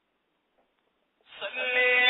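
Near silence, then about a second in a single voice begins chanting, rising into a long held note.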